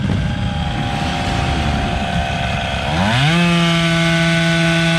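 Motorcycle engine idling, then revved up about three seconds in and held at a steady high speed, the way a bike is held at fixed revs while its exhaust noise is measured.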